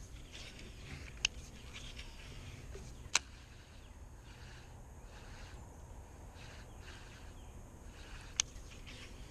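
A few sharp clicks from a baitcasting rod and reel being handled, three of them a couple of seconds or more apart, over a faint steady outdoor background.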